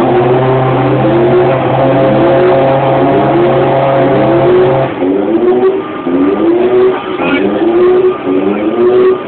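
Ferrari Formula One car's V8 engine running at low revs, its throttle blipped over and over, about once a second, each rev rising in pitch and dropping back. A steady low hum underneath stops about halfway through.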